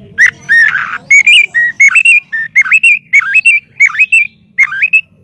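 White-rumped shama (murai batu) singing a rapid string of loud, clear whistled phrases, its notes sweeping up and down. The song stops just before the end.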